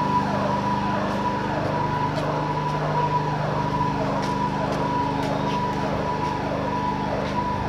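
Repeating electronic warble: a steady high tone with a falling glide about every three-quarters of a second, over a steady low hum, siren-like.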